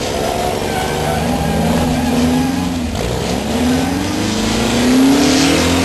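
Race trucks' engines revving hard, the pitch sweeping up repeatedly, with the longest and loudest rise near the end.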